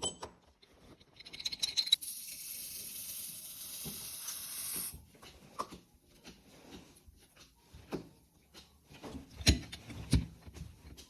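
A steady high hiss for about three and a half seconds, then scattered light clicks and taps and two dull thumps near the end, from a popcorn popper and the handling of it.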